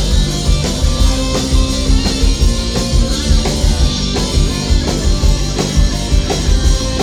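Rock band playing an instrumental passage between sung verses: drum kit keeping a steady beat under guitars.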